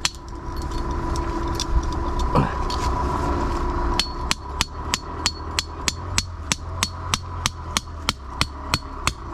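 Metal ground stake being hammered in: a steady run of sharp strikes, about three a second, faint at first and louder from about four seconds in.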